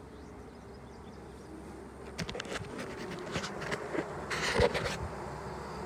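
Honeybee colony buzzing steadily as the hive is opened, with wooden knocks and scrapes as the cover comes off from about two seconds in.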